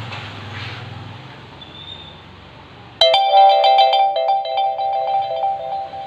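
Mobile phone ringtone starting suddenly about halfway through: a loud, quick melody of repeated pitched notes, an incoming call.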